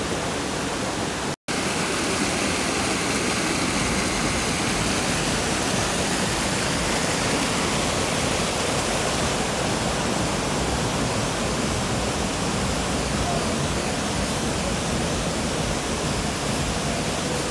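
Waterfall: a steady, full rush of falling water, cutting out for a split second about a second and a half in.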